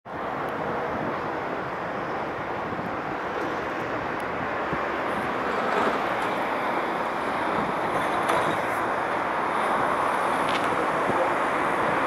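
Steady roar of city traffic on a busy avenue, an even wash of tyre and engine noise that grows slightly louder toward the end.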